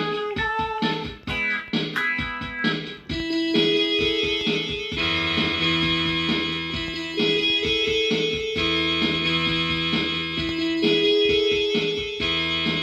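Guitar instrumental break in a song: a steady repeating figure that grows fuller about three seconds in, with a lower part joining around five seconds in.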